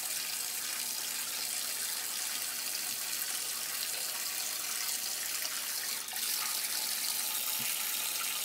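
Water running steadily from a bathtub faucet into the tub, a constant splashing hiss that gets slightly louder about six seconds in.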